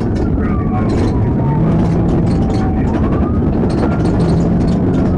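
A siren wails in slow falls and rises over the loud, steady rumble of the chase vehicle driving hard across a rough plowed field.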